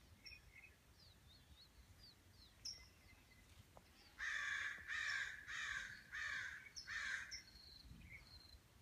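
A bird giving five loud, harsh calls in quick succession, about two thirds of a second apart, starting about four seconds in. Thin high chirps from small birds come before and between them.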